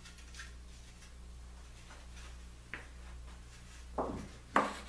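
Faint workshop handling noises: a few light clicks, then two short knocks about four seconds in and half a second later, the second the loudest, as clamps and bent wood strips are handled on the clamping table. A low steady hum runs underneath.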